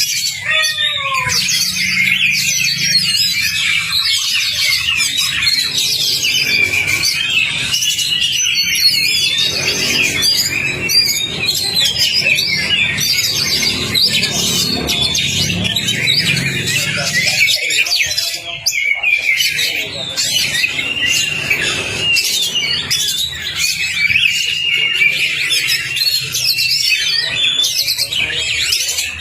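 Oriental magpie-robin (kacer) singing a fast, unbroken song of varied chirps, whistles and trills.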